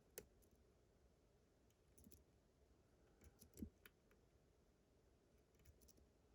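Faint, scattered clicks of a lock pick turning the discs inside an Abus GDS disc-detainer lock, the plainest about three and a half seconds in and again at the end.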